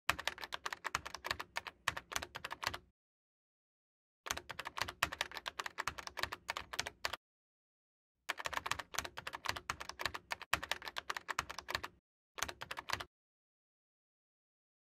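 Typing on a computer keyboard: four bursts of rapid key clicks, the last one short, separated by pauses of about a second.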